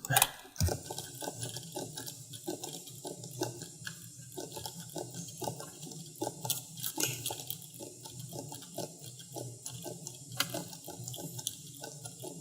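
Faint, irregular clicking of a computer mouse and keyboard, a few clicks a second, over a low steady hum of background noise.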